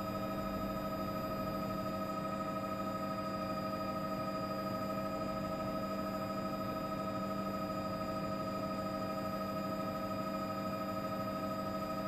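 Steady, unchanging drone of a helicopter's engine and rotors heard inside the cabin, several constant tones over a low rumble.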